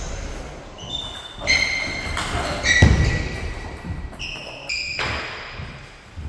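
Table tennis rally: a plastic ball clicking off bats and table, with short squeaks of shoes on the sports floor, echoing in a large hall. The loudest knock comes about three seconds in, as the point ends.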